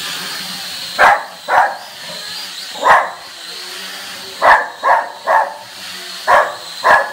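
Small dog barking at a hovering toy quadcopter drone: about eight short, sharp barks at uneven intervals, some in quick pairs and threes. Under them runs the drone's steady high-pitched propeller whine.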